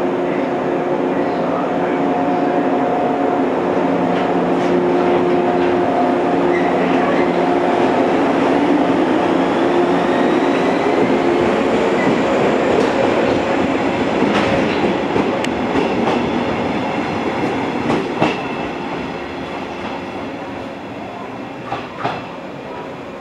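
JR West 115-series electric multiple unit pulling out of a station. Its traction motors whine up in pitch as it accelerates, and its wheels click over rail joints. The sound fades as the train draws away.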